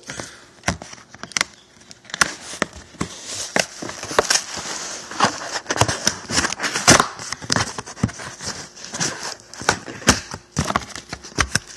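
Cardboard box being worked open by hand: irregular knocks, clicks and scrapes of cardboard, with rustling that is heaviest midway through.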